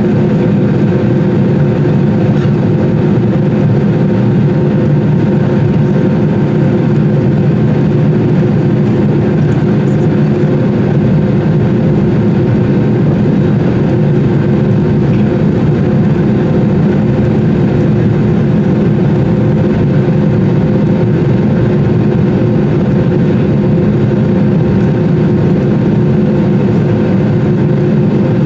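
Airbus A320 cabin noise heard by a window seat: the jet engines and the air system give a steady, loud hum with a few constant tones, while the plane rolls along the ground.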